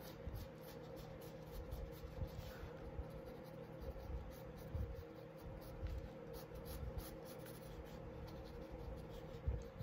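Pencil sketching on paper: faint, short strokes repeated as lines are drawn.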